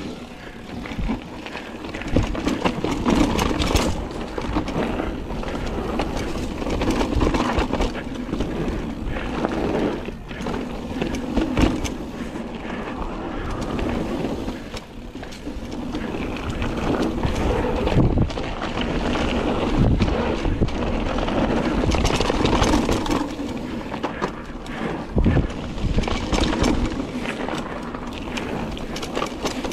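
Mountain bike riding down a dirt trail: tyres rolling over the ground and the bike rattling and knocking over bumps, with wind on the microphone.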